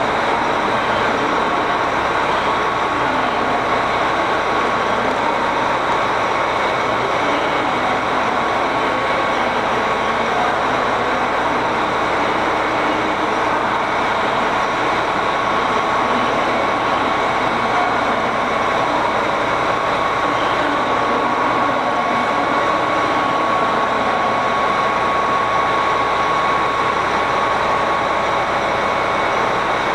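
Steady train and engine noise: an even rumble with a constant high whine, holding the same level throughout.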